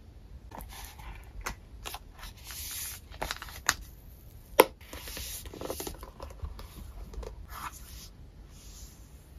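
A hardcover paper journal being closed and handled: pages and cover rustling and shuffling, with scattered light taps and one sharp, loud click about halfway through as its strap clasp is fastened over the cover.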